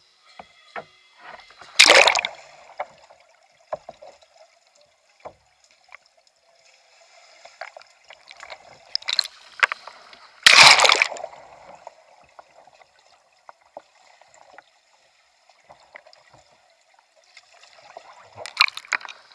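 Water splashing and sloshing around a kayak as it capsizes and rolls back up, with loud splashes about 2 seconds in, around 10 to 11 seconds, and again near the end, between quieter dripping and small knocks.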